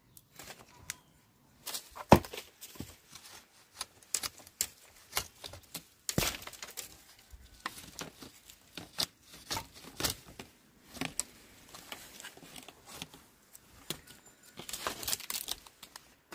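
A dry dead wooden pole cracking, knocking and scraping against a papaya tree as it is handled, with rustling of leaves and brittle bark; irregular sharp cracks, the loudest about two seconds in.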